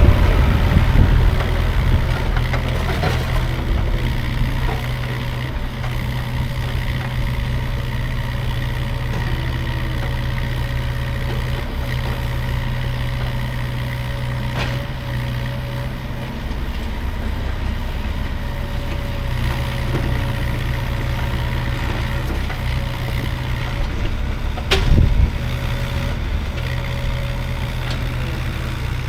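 Diesel engine of a CAT 305.5 mini excavator running steadily, with one sharp knock about 25 seconds in.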